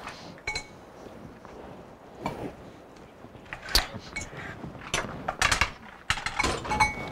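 Kitchen clatter: scattered knocks and clinks of utensils and dishes, some with a brief ring, coming more thickly in the second half.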